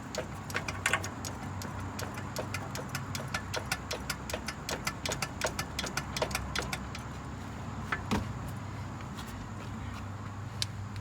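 Rapid, irregular clicks and rattles from a Jeep Wrangler JK's front end as someone jumps up and down on the bumper to force a bump stop up into the coil spring. The clicks thin out after about seven seconds, with one louder click a second later.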